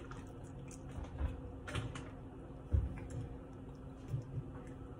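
Faint crunching of a person chewing a wheat cracker, a few small scattered crunches and clicks, the loudest a little past halfway.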